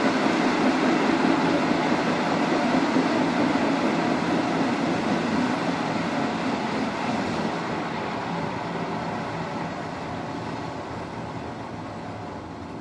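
Running noise inside a Matterhorn Gotthard Bahn metre-gauge train, with a repeated knocking from under the floor caused by a flat spot on a wheel. The noise grows steadily quieter through the second half.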